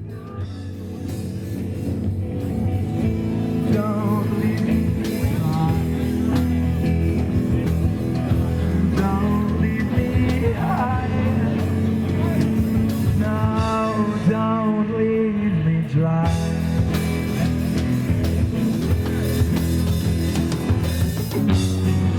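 Rock song with singing, fading in over the first few seconds and then running at a steady level.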